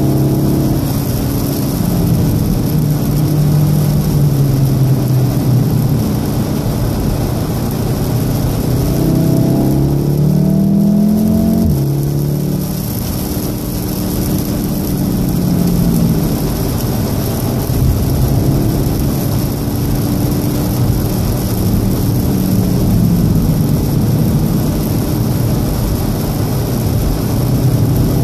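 Cabin sound of a 2014 VW Golf VII R's turbocharged 2.0-litre four-cylinder engine pulling hard at speed on a wet track, over a steady hiss of tyres and water spray. The engine note climbs and then drops suddenly about twelve seconds in, a gear change, before pulling on again.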